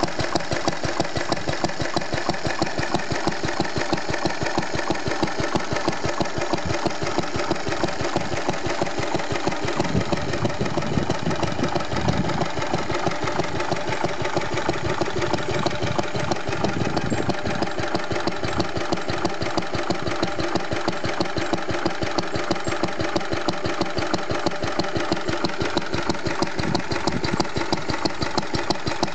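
Lister D single-cylinder stationary engine running well at a steady speed, with a fast, even exhaust beat.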